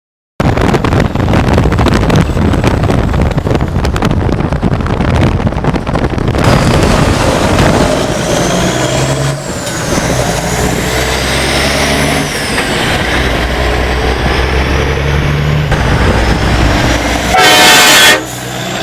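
Loud wind and road noise through an open car window at highway speed beside a Freightliner Classic XL semi truck, with a steady low drone from the truck. About a second before the end comes a short, very loud blast of the truck's air train horn, the loudest thing here.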